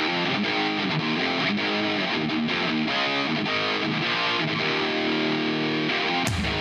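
Background rock music led by a distorted electric guitar. A heavier beat with more bass comes in near the end.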